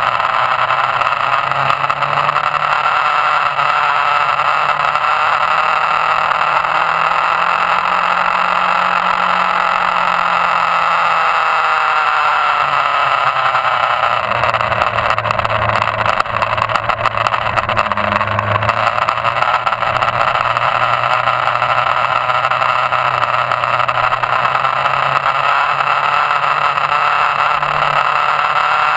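Motorcycle engine running at speed, heard from on board the bike under heavy wind noise on the camera microphone. The engine note dips and rises again a couple of times as the throttle is eased and reopened through the corners.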